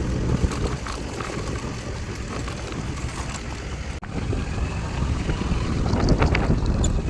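Wind buffeting the microphone over a steady low rumble, with a brief break about four seconds in.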